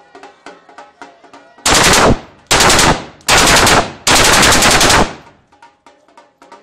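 Celebratory automatic gunfire: four rapid bursts in quick succession, the last and longest lasting about a second.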